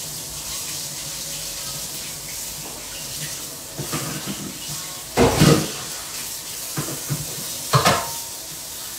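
Kitchen sink tap running steadily, with two louder clunks about five and eight seconds in.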